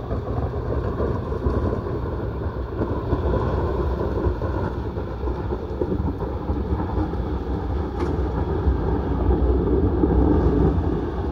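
Toyota Hilux engine running hard under load as the 4WD climbs a steep dirt hill, rising in loudness near the end.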